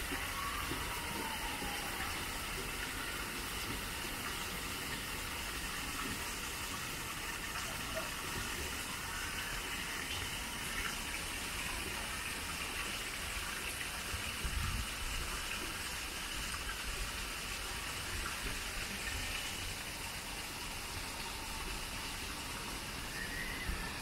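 Steady rushing of running water, with a few faint high chirps and a brief low bump about halfway through.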